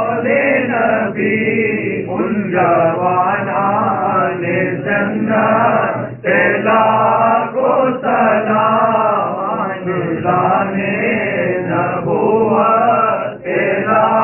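Several men chanting an Urdu salam (naat) together in unison, a lead reciter on a microphone with the others joining in, without instruments.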